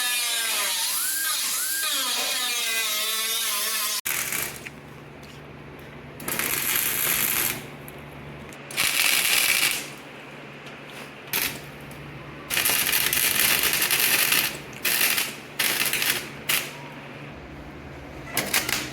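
A wavering pitched sound that cuts off sharply about four seconds in. After it, a power tool runs in short bursts of about a second each, with pauses between them, over a steady low hum.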